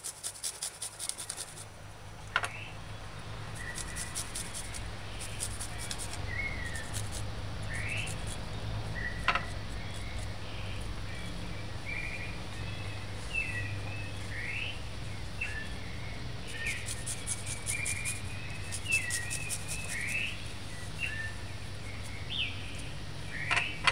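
Garlic grated on a flat metal hand grater over a ceramic plate: short runs of scraping strokes, with many short high chirps throughout and a low steady hum in the background.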